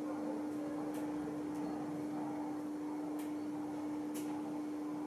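Steady low hum over room noise, with a few faint light clicks about one, three and four seconds in.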